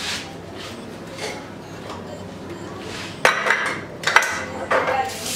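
Kitchenware being handled on a counter: a few light clinks, then a cluster of louder metal knocks and clanks about three seconds in as a stovetop moka pot is picked up and worked at.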